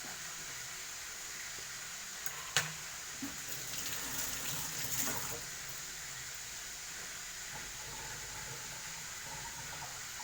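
A sharp click, then water running for about two seconds, over a steady background hiss.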